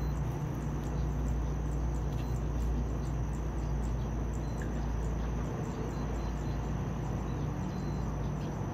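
Steady outdoor background noise: a constant low rumble with a thin, continuous high-pitched tone over it.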